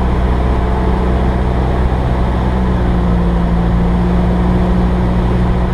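Cessna 172S's four-cylinder Lycoming IO-360 engine and propeller droning steadily, heard inside the cabin on final approach with the flaps set to 30.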